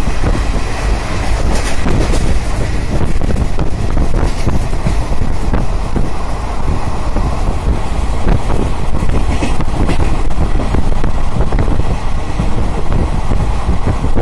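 Passenger train running at speed, heard from inside the carriage: a steady rumble of wheels on rails with quick, irregular clattering, and wind buffeting the microphone.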